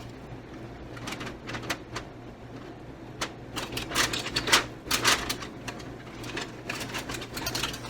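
Light, irregular clicks and knocks with a few short rustles from opening a rice cooker and handling its pot of steamed cupcakes.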